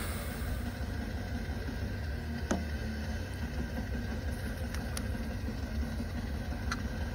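A steady low hum, like a motor running, with a few faint, light clicks scattered through it.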